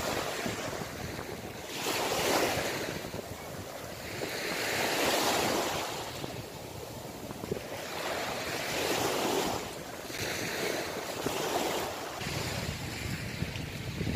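Small sea waves breaking and washing up onto a sandy beach, a swelling wash every two to three seconds, with wind on the microphone.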